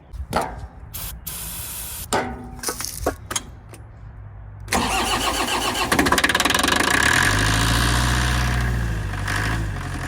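Moffett forklift engine starting with the help of starting fluid after refusing to start on its own: a few short hisses and knocks, then about five seconds in it suddenly catches and runs, revs up and back down, and settles to running.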